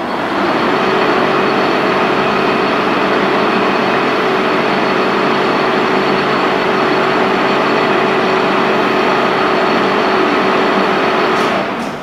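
Rotary table of a Tos W-100 horizontal boring mill turning under power, its drive running with a steady loud hum and whir. The drive stops a little before the end.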